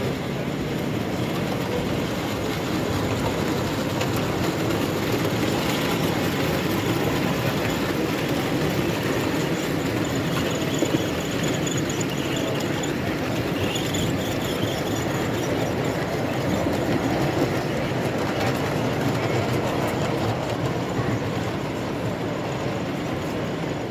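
Model railway goods train of wagons running along the layout's track, a steady unbroken noise with no pauses.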